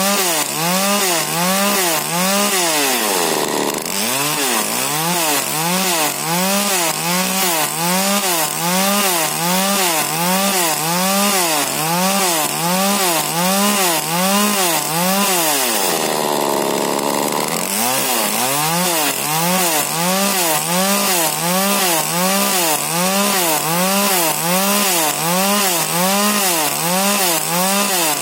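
Small 40cc two-stroke Husqvarna chainsaw with a modified exhaust running at high revs in a test cut. Its pitch rises and falls in a steady rhythm about once every half second or so, and sags deeper twice, around three seconds in and again past the middle.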